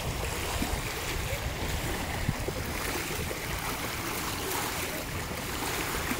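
Small waves lapping and washing over a pebble beach at the water's edge, with a steady low rumble underneath.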